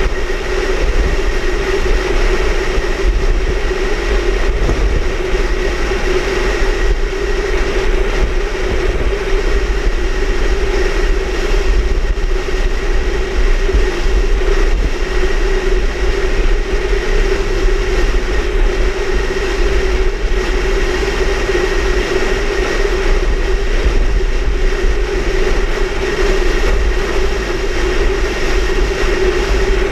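Steady, loud rushing wind noise with a heavy low rumble on the microphone and a constant hum underneath, unchanging throughout.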